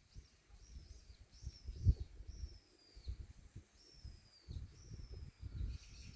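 A songbird repeating high, clear whistled notes, each sliding downward and lasting about half a second, several in a row. Under them is an uneven low rumble that comes and goes.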